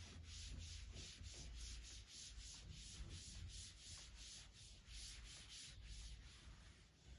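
Chalkboard duster wiping a chalkboard in quick back-and-forth strokes, a faint rhythmic rubbing hiss of about three to four strokes a second.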